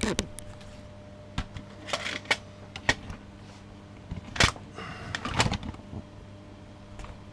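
Hands handling hardware at a modular synth rack: a string of irregular clicks, knocks and brief rustles, the loudest about four and a half seconds in, over a faint steady electrical hum.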